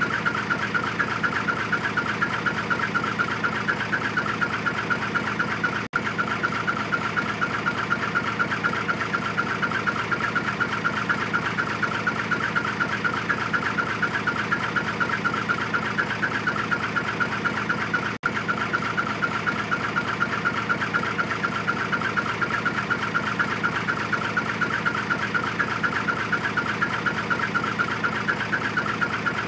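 Hino Profia dump truck's diesel engine idling through its twin exhaust tips, with a steady, rapid chirping "chun-chun-chun" note from the muffler over the low engine rumble. The sound dips out briefly twice, about six seconds in and again near eighteen seconds.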